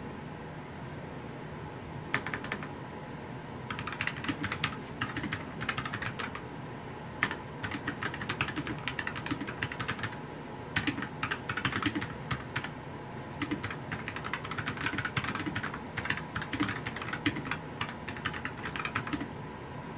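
Typing on a computer keyboard: quick runs of key clicks in spurts of a second or two with short pauses between, starting about two seconds in, over a steady background hum.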